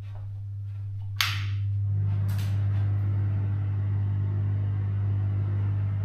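A sharp click about a second in, then a steady low hum with a rushing whoosh that builds and holds: a bathroom light switched on and its extractor fan starting up and running.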